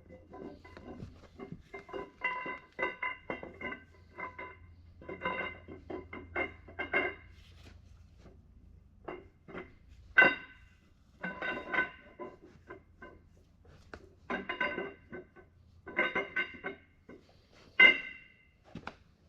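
Metal engine parts clanking and ringing as they are handled and struck, in irregular groups of knocks. Each strike rings at the same few pitches, with the loudest knocks about ten seconds in and near the end.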